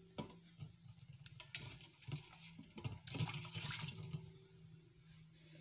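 Fingers swishing and stirring jaggery water in a stainless steel bowl, with short splashing bouts, the strongest a little past the middle.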